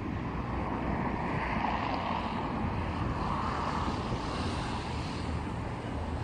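Wind blowing across the camera microphone: a steady rumble with hiss on top, swelling a little twice.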